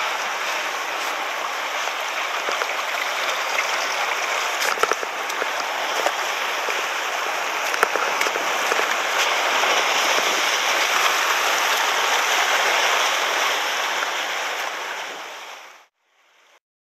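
Sea surf washing over a rocky shore, a steady rush of foaming water with a few small clicks; it cuts off suddenly near the end.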